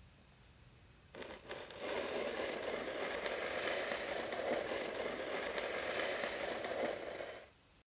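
Loud, dry crackling rustle full of small clicks, starting about a second in and breaking off abruptly near the end.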